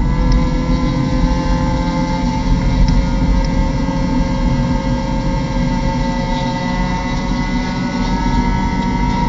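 Mazda MX-5 Cup race car's four-cylinder engine heard from inside the cabin, running hard under throttle at a nearly steady pitch with a slight rise, over rumbling road and wind noise.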